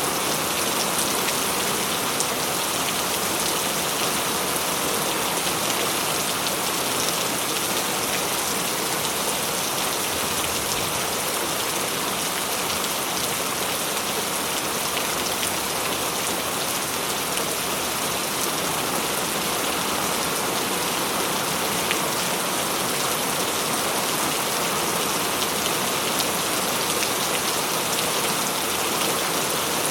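Heavy rain falling steadily, a dense hiss of countless drops striking a surface with fine individual patters, unchanging in strength.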